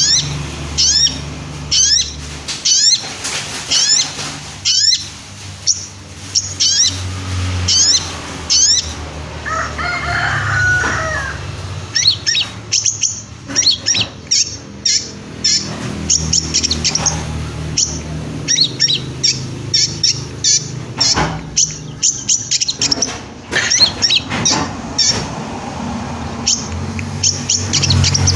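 Long-tailed shrike (pentet) in full song: a string of sharp downslurred notes repeated about once a second, then from about twelve seconds in a fast, varied run of chattering notes. A low steady hum lies under it.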